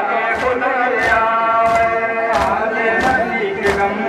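A crowd of men chanting together in a sustained, sung line, a Muharram mourning chant, with a sharp beat about every two-thirds of a second.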